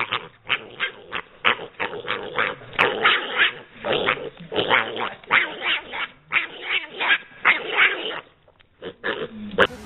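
Piglet grunting in quick short calls, about three a second, with a brief pause shortly before the end.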